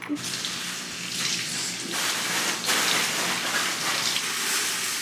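Kitchen tap running steadily, water splashing over asparagus spears as they are rinsed under it.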